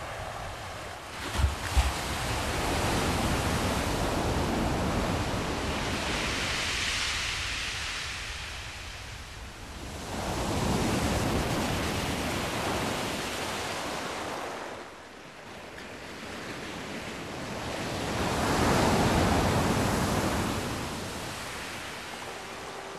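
Ocean waves breaking over rock shelves and washing back, swelling and fading in three long surges. Two brief low thumps come about a second and a half in.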